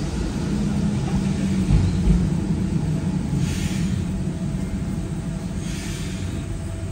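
W8-class tram running along its track, heard from inside the wooden saloon: a steady low rumble from the running gear, with two brief hisses about three and a half and six seconds in.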